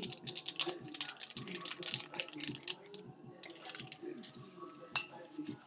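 Rapid light clicking and clatter of food being handled in a kitchen, with one sharp clink about five seconds in.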